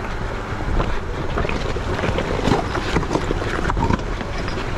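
Wind buffeting the microphone: a heavy, steady low rumble with scattered crackles and knocks.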